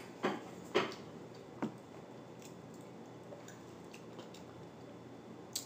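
A few short, wet mouth smacks from people chewing food: three in the first couple of seconds and one more near the end, with faint room tone between.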